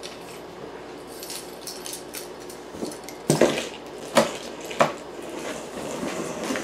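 A blade scraping and cutting along the taped seam of a large cardboard box, with three sharp knocks on the cardboard in the second half.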